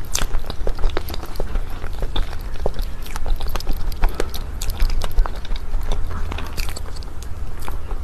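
Close-miked chewing of chocolate mousse cake: irregular small wet clicks and smacks of the mouth over a steady low hum.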